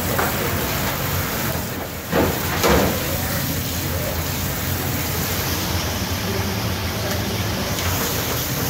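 Water spraying steadily from a pull-out sink spray head onto whole snow crabs being rinsed in a stainless steel sink, with two short knocks a little after two seconds and near three seconds in.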